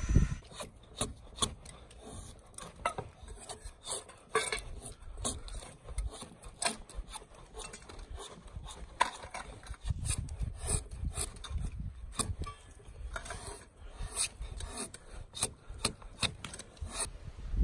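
A hand-held carving blade shaving thin curls off the outside of a red cedar dugout canoe hull, in quick repeated scraping strokes, about two a second.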